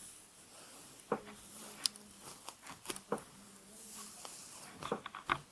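Hairbrush being drawn through hair close to the microphone: soft scattered crackles and ticks over a faint hiss.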